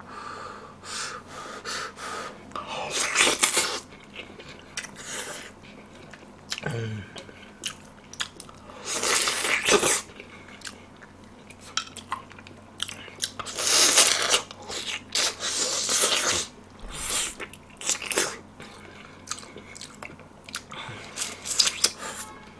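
A person biting and chewing meat off pork spine bones from gamjatang (pork spine stew), eaten by hand. The chewing comes in irregular bursts, with a few louder ones several seconds apart.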